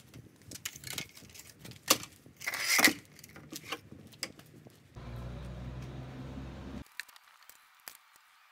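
Plywood being handled on a concrete driveway: scattered knocks and clatter, with a short loud scrape of a thin plywood sheet about two and a half seconds in. A low steady hum follows for about two seconds and cuts off suddenly.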